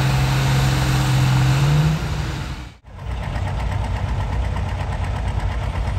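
Diesel farm tractor engine running at a steady high pitch; about two seconds in its pitch rises slightly and the sound fades away. After a brief drop-out, a diesel tractor engine idles at a lower, uneven pitch.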